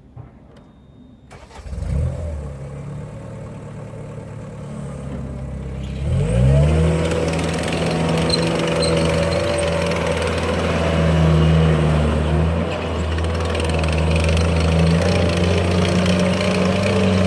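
Caterpillar 247B compact track loader's diesel engine starting about two seconds in and running low, then revving up about six seconds in and holding steady at a higher speed.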